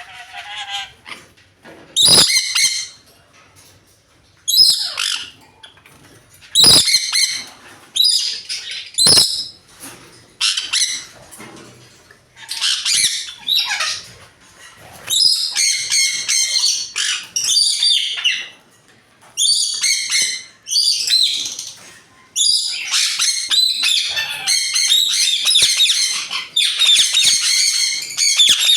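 Several birds squawking in loud, harsh, high bursts. The calls start out spaced a second or two apart and become almost continuous from about halfway on. There are three sharp knocks in the first ten seconds.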